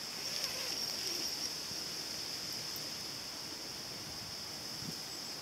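Quiet outdoor ambience: a steady high-pitched hiss, with faint rustling in the first second or so.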